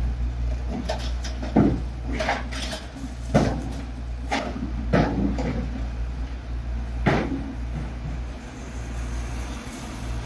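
Tata Hitachi excavator's diesel engine running steadily while it breaks into a reinforced-concrete building frame. Several sharp cracks and clanks of concrete and steel come through, about six in all, the loudest near the start and again about three seconds in.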